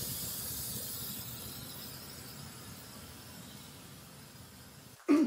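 Aerosol can of 3M Super 77 spray adhesive hissing as it is sprayed onto foam board. The hiss fades gradually over several seconds.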